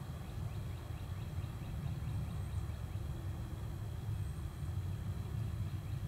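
Outdoor woodland ambience: a steady low rumble with a few faint high bird chirps, about two and a half and four seconds in.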